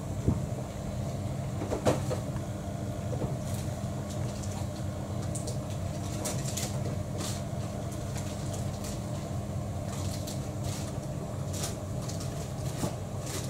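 A cat eating wet food from a bowl up close: many small, wet chewing and lapping clicks over a steady low hum.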